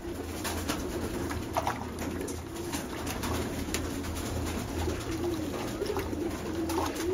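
Domestic pigeons cooing throughout, with scattered light splashes and knocks from a pigeon being dipped in a bucket of water.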